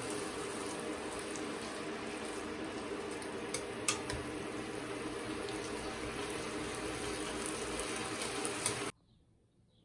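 Steady rush of running water, with a few small clicks, cutting off abruptly near the end.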